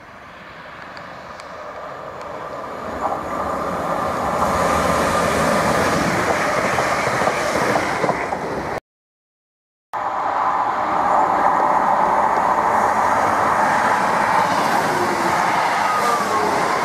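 Class 350 electric multiple unit approaching, its running noise growing steadily louder over the first few seconds. After a short silent break about nine seconds in, another passenger train passes close by at speed, a loud steady rush of wheels on rail.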